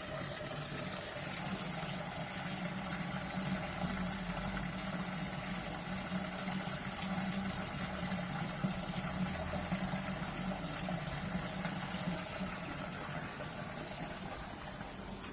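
Garden pond waterfall: water spilling and splashing steadily into a fish pond.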